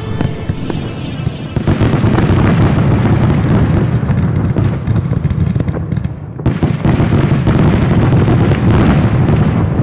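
Consumer fireworks going off: dense, rapid crackling and popping from ground fountains and small bursts, easing briefly a little past six seconds before picking up again.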